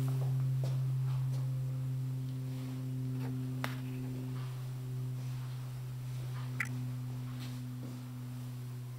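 A steady low hum that slowly fades, with a few faint clicks and a short high chirp about two-thirds of the way in.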